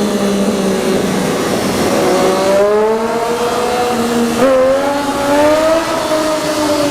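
Triumph Daytona 675R's inline three-cylinder engine pulling under throttle: the revs climb, dip and jump abruptly about halfway through at a gear change, climb again, then fall away near the end as the throttle eases off.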